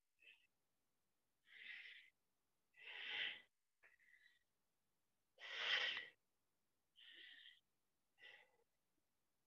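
A man's breathing under exertion as he swings a weighted stick: short, faint, hissy breaths in and out, about eight of them at uneven intervals.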